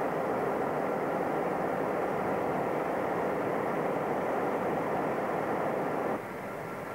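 Steady engine drone from diesel locomotives in the depot yard, with no distinct pitch, dropping suddenly to a lower level about six seconds in.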